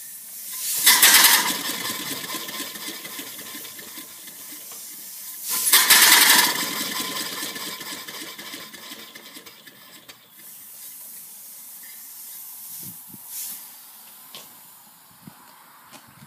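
Antique E.H. Wachs upright steam engine running. Twice, about a second in and again around six seconds, it surges with a loud rush of hiss and rapid exhaust chuffs, then slows and dies down. It runs more softly in the last few seconds.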